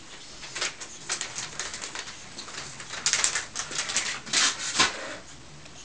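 Scuffling and scratching as a Neva Masquerade cat and a Tibetan spaniel puppy play-fight on a parquet floor: irregular bursts of paws and claws, busiest in the second half, with a dull knock near the end.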